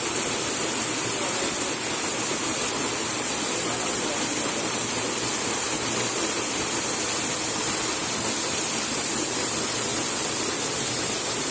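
A waterfall pouring down in a steady, unbroken rush of water.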